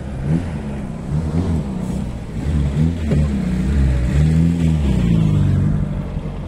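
Vehicle engine revving up and down again and again, its pitch rising and falling several times, loudest a little past the middle.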